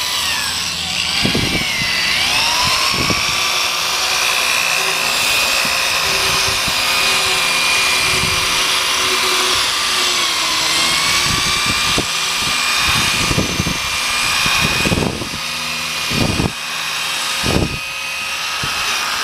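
Electric drill spinning a sanding pad against a plastic headlight lens, a steady motor whine that sags in pitch briefly when the pad is pressed. A few short thumps come near the end.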